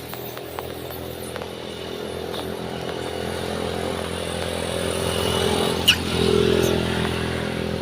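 A passing road vehicle's engine, growing louder as it approaches. There is a single sharp click about six seconds in.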